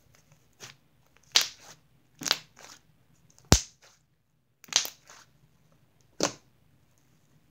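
Butter slime being pressed and poked by hand: about six short, sharp pops and crackles as air trapped in the slime is squeezed out, spaced a second or so apart, the sharpest a crisp click about three and a half seconds in.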